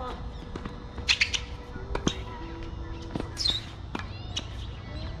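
Tennis rally on a hard court: sharp racket strikes and ball bounces about a second apart. Birds squawk and chirp throughout, with low wind rumble underneath.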